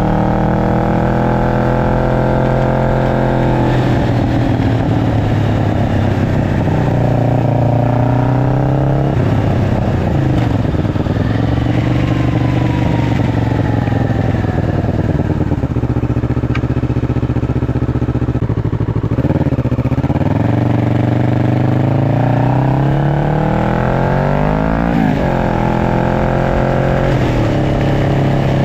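Kawasaki Ninja 650 parallel-twin engine breathing through an aftermarket link pipe and slip-on muffler, running loud and steady. Its pitch climbs and falls several times, dropping sharply now and then, with a quick dip and rise near the end.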